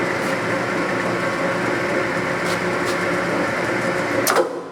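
Standard Modern Series 3000 lathe running at its slow 60 rpm spindle speed: a steady hum of motor and gearing with several steady tones. Near the end there is a sharp clack and the running sound drops away.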